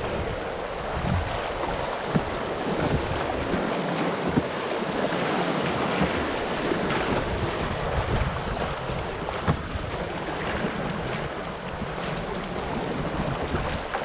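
River rapids rushing around a canoe's bow: a steady hiss of churning whitewater, with wind rumbling on the microphone at times and a few brief sharp splashes.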